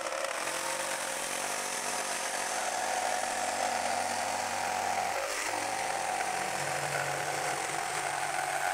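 Bosch GST 65 BE jigsaw running steadily, its reciprocating blade cutting through half-inch MDF board, with a brief dip about five seconds in.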